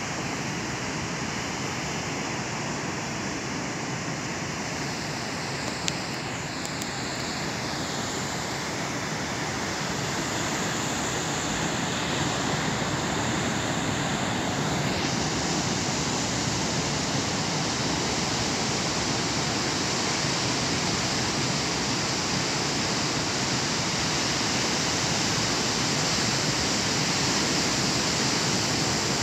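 Ocean surf breaking on a rocky shore: a steady roar of waves that grows a little louder toward the end.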